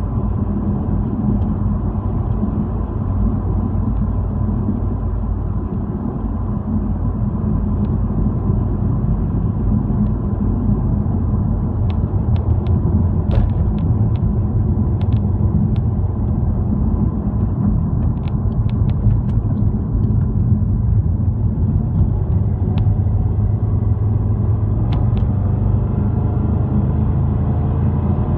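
Car's road noise heard from inside the cabin while driving: a steady low rumble of tyres and engine, with a few faint light clicks in the middle.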